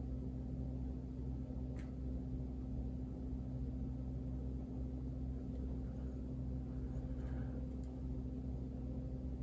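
Steady low hum of room tone with a faint click about two seconds in.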